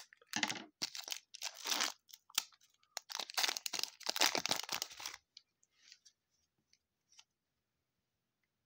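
Foil wrapper of a trading card pack being torn open and crinkled: a run of rustling, crackling tears that stops about five seconds in, leaving only a few faint ticks.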